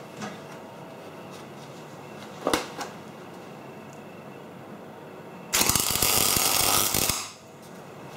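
A sharp knock about two and a half seconds in, then a MIG welder's arc crackling for about a second and a half near the end: a short tack weld fixing a piece of steel pipe onto a steel plate.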